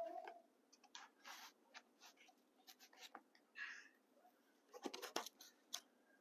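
Near silence: room tone with a few faint scattered rustles and clicks.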